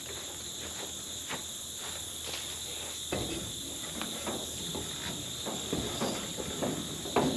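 Steady high chirring of insects, with scattered knocks and footsteps from about three seconds in as a person climbs the metal steps and grabs the handrail of a combine.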